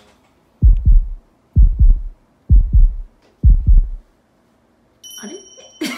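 Heartbeat sound effect: four loud, deep double beats, about one a second, with a quieter higher sound starting near the end.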